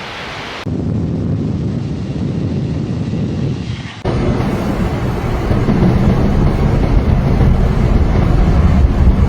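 Low, steady rumble of a vehicle's engine and road noise, changing abruptly about a second in and again about four seconds in.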